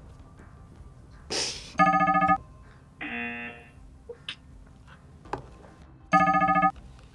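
Two short, loud electronic buzzer tones, each about half a second, a little over four seconds apart: the alert that a noise has set off the sound meter. A brief hiss comes just before the first, and a softer, shorter tone about a second after it.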